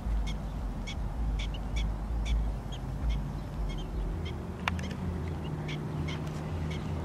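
Prairie dogs giving their repeated short barking calls, about two to three a second, the alarm call they give as people approach. A low rumble from the camera being carried runs under the first half.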